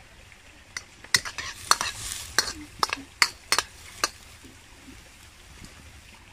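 A utensil clinking against a cooking pan while food is stirred: about ten sharp, irregular clinks between about one and four seconds in, then it stops.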